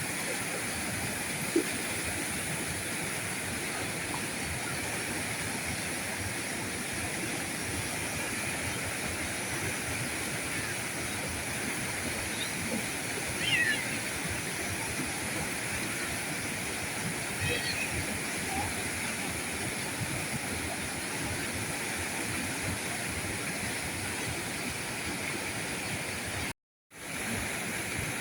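River current rushing steadily. A few short high chirps come through midway, and the sound drops out completely for a split second near the end.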